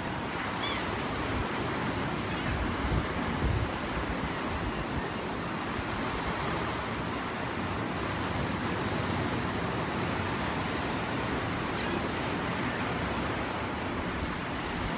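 Steady wash of ocean surf breaking on a sandy beach, mixed with wind gusting across the microphone.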